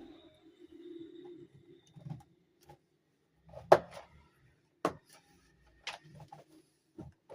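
Sharp plastic clicks and knocks, four of them about a second apart with the loudest near the middle, after faint handling rustle: plastic parts of a toy dollhouse castle being handled and snapped into place during setup.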